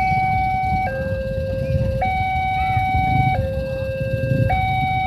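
Railway level-crossing warning alarm sounding an electronic two-tone hi-lo signal, the pitch switching about every second and a quarter, the sign that a train is approaching the crossing. A steady low rumble runs underneath.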